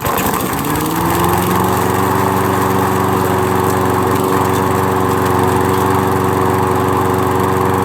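Toro walk-behind gas lawn mower engine starting and revving up over about a second, then running at a steady speed without stalling: a sign that the cleaned carburetor has cured its stalling right after start-up.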